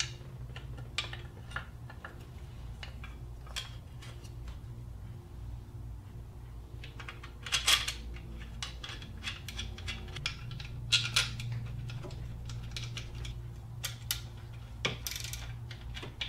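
Hand tools and steel bolts clicking and clinking against metal while a timing chain guide is fitted and its bolts are run in and snugged with a ratchet, in a few short clusters over a steady low hum.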